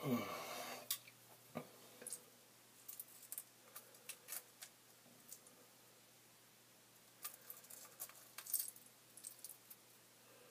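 Scattered light clicks and metallic taps of a small metal tool handled at close range against a fishing hook. A louder sound slides down in pitch in the first second.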